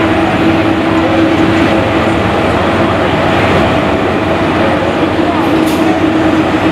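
Jet airliner engines running, a loud steady roar with a constant hum under it.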